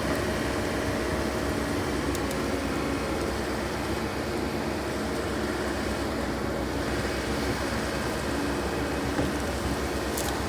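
Heavy-equipment diesel engine running steadily, a constant low rumble with a steady hum and no change in speed.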